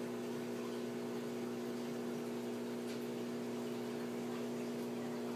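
Steady low hum of running aquarium equipment, with a faint even hiss beneath it.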